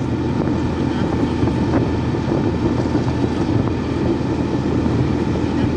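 Steady engine and road noise of a moving vehicle, heard from on board while it drives along a paved road.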